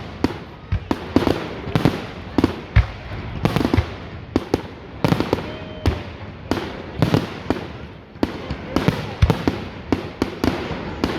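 Fireworks exploding in quick, irregular succession, with sharp bangs about one to three a second that overlap and echo.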